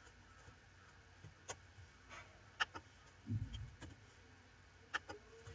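A few scattered, faint clicks of a computer keyboard and mouse as windows are switched and code is typed, with a short low rumble a little past halfway.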